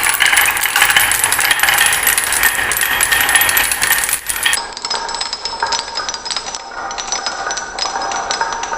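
Many marbles rolling and clattering down a marble run: a dense, continuous stream of small clicks and rattles with light ringing clinks.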